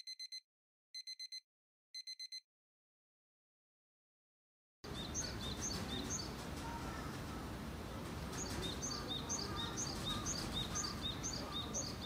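Three quick runs of electronic beeps, about four beeps each, then a couple of seconds of silence. Then outdoor ambience with a bird singing a repeated high chirping phrase, about two notes a second.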